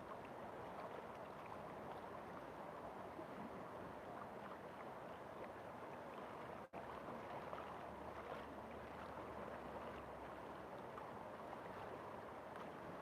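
River water flowing steadily, with a split-second gap in the sound about halfway through.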